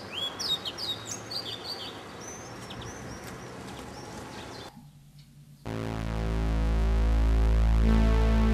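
Small birds chirping and singing outdoors for the first four and a half seconds, then a brief hush, and about six seconds in, synthesizer music with sustained chords over a low bass comes in.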